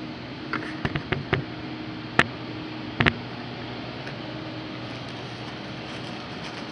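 A steady low machine hum, with a run of sharp knocks or clicks over it: several in the first second and a half, a single louder one about two seconds in, and a quick double knock about three seconds in.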